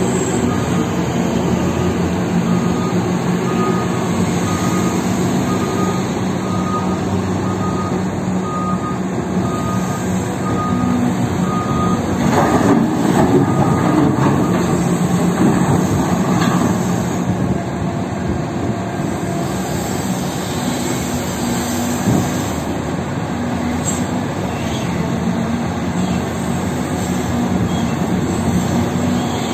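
Cat 6030 hydraulic mining shovel's engines running steadily under load while it digs and swings. A backup alarm beeps about twice a second for several seconds, and about halfway through a bucketload of rock pours into a haul truck's steel bed.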